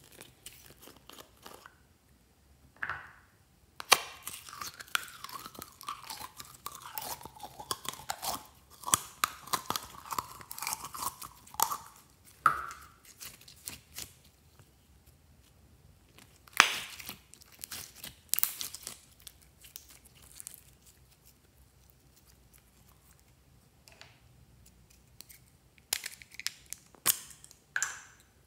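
Sticky red glitter slime being pulled from its tub, stretched and squeezed between the fingers. It crackles and pops in quick runs, with a wavering squeak through the first long run, and there are a few sharper clicks near the end.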